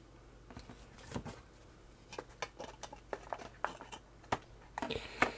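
Faint, scattered clicks and light taps of a 3D-printed plastic front panel knocking against a circuit board as the two are handled and fitted together by hand.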